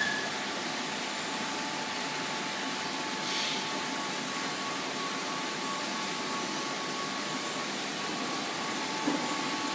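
Steady hiss and hum of reef aquarium equipment, the pumps and circulating water, with two faint steady tones and a brief louder hiss about three seconds in.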